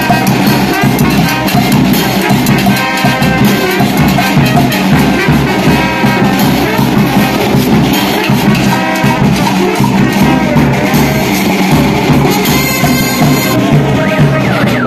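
Live brass band with saxophones, trumpets and drums playing a lively dance tune loudly, with a steady drum beat.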